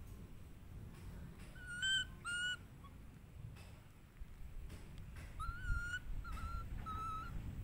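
Baby monkey giving short, high, squeaky cooing calls: two close together about two seconds in, then three more in a row from about five and a half seconds, each call holding much the same pitch.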